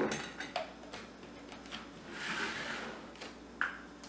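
A glass measuring cup set down on a granite countertop with a sharp knock, followed by a few lighter knocks and a soft rustle as kitchen items are handled on the counter.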